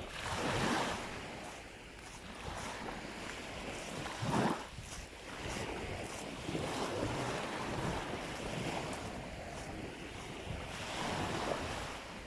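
Waves washing up on a sandy beach, swelling and falling back a few times, with wind blowing on the microphone.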